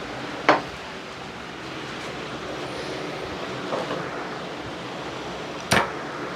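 Steady outdoor street noise, with two sharp smacks about five seconds apart, one just after the start and one near the end.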